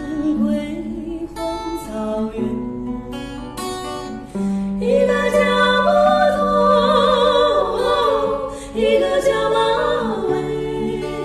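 Acoustic guitar played under a female voice singing; about four and a half seconds in a second female voice joins in harmony and the singing grows louder.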